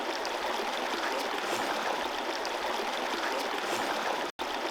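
Stream water running steadily, an even rushing noise that drops out for an instant near the end.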